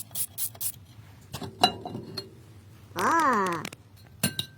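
A few light clicks and knocks, then about three seconds in a single short call that rises and falls in pitch, lasting under a second.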